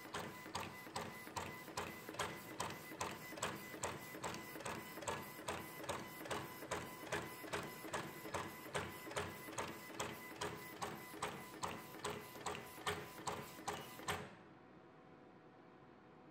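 STC-105 automatic tag cutter feeding printed roll tag tape and cutting it into single tags: a sharp blade snap about two and a half times a second over a steady motor whine, about thirty-odd cuts in all. It stops suddenly about fourteen seconds in.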